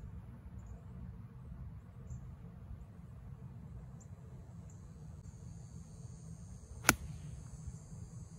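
A golf iron striking the ball in a full swing: one sharp crack about seven seconds in. Faint high-pitched insect chirping and a steady low rumble sit underneath.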